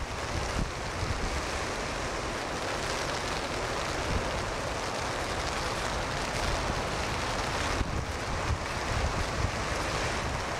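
Strong wind buffeting the microphone in gusts over the steady rush of heavy surf breaking in a storm.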